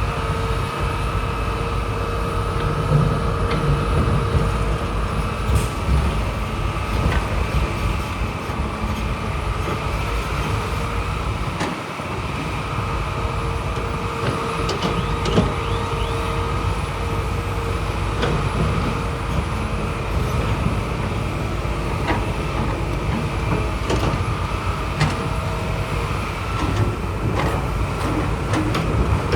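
Heavy earthmoving machine's diesel engine running steadily under load, with a constant whine and scattered knocks and clanks.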